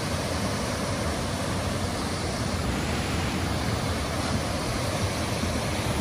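Waterfall cascading between boulders into rocky pools: a steady, even rush of falling water.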